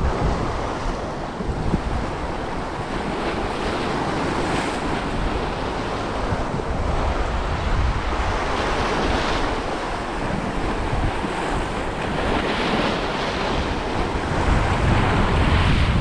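Sea waves breaking and washing over shoreline rocks, swelling every few seconds, with wind rumbling on the microphone.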